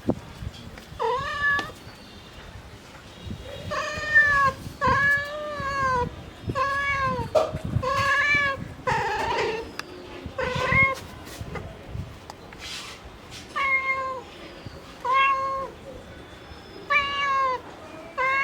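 Mother cat meowing over and over, calling for her kittens: about a dozen short meows, each rising and then falling in pitch, with brief pauses between them.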